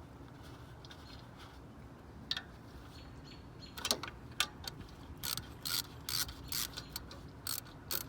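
Hand ratchet wrench clicking in uneven bursts while a bolt is turned, starting about four seconds in after a single click near two seconds.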